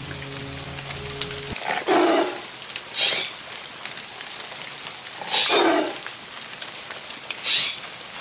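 Steady rain-like hiss broken by four loud, sudden whooshing sweeps, each under a second long, two of them falling in pitch. A low held music chord cuts off about a second and a half in.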